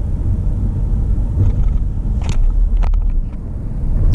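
A car driving on the highway: steady low road and engine rumble, with a couple of short clicks a little past halfway.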